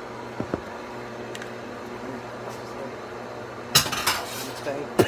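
A spoon knocked against a cooking pot to shake butter off it: a couple of light clicks, then a loud clatter near the end and one sharp knock.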